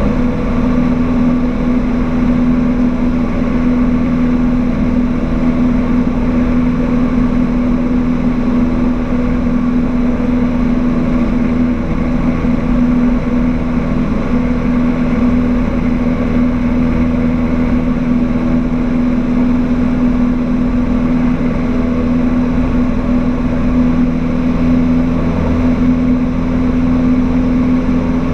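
Cessna 152's four-cylinder Lycoming O-235 engine and propeller running at a steady pitch in flight, heard inside the cabin as a constant drone.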